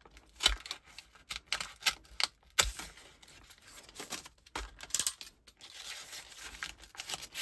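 Craft knife slicing along the edge of a card-and-plastic die packet to open it: a run of short scraping cuts and dry clicks, the sharpest about half a second, two and a half and five seconds in.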